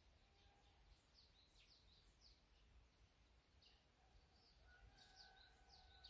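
Faint, scattered chirps of small songbirds, short quick high notes coming in two clusters, over a low steady background rumble. A faint steady tone joins near the end.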